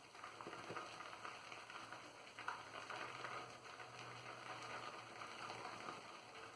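Faint wet crackle of a Zenith B10 boar-bristle shaving brush swirling and loading Lather Bros shave soap in its tub, building lather as in a bowl.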